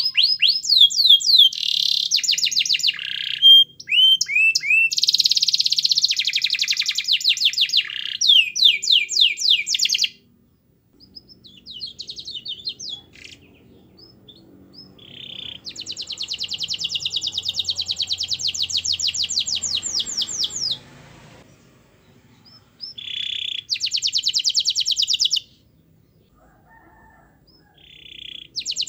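Domestic canary singing in fast trills of rapid repeated high notes. Dense phrases come first, then a short pause, then softer notes and a long unbroken trill midway, and a shorter trill later, with brief gaps between.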